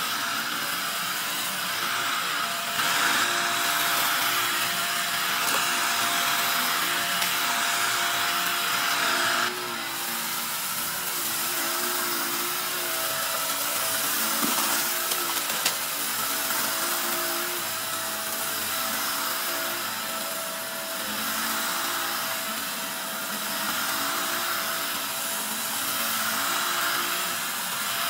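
Upright vacuum cleaner running over carpet, its motor giving a steady whine under a continuous rush of suction as it picks up dirt and debris. It gets louder about three seconds in and drops back around ten seconds, with a few sharp clicks in the middle.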